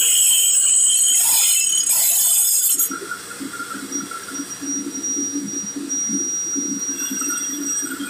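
INGCO wall chaser running with a shop vacuum drawing on its dust port: a loud high hiss that cuts off suddenly about three seconds in, leaving a quieter low hum with a faint steady high whine.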